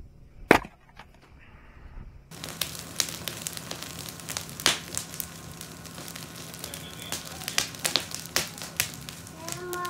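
A single sharp axe chop into a log on a chopping block about half a second in. Then, from about two seconds in, a wood campfire crackling and popping steadily.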